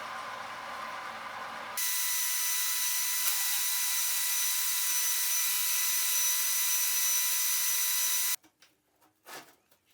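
Workshop power tool working metal: a steady hiss with a high whine that starts abruptly about two seconds in and cuts off suddenly near the end, followed by a few faint knocks.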